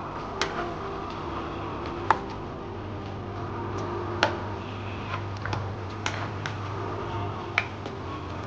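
Squid rings frying in oil in a nonstick pan with a steady sizzle, stirred with a plastic spatula that knocks sharply against the pan every second or two. A low steady hum runs underneath.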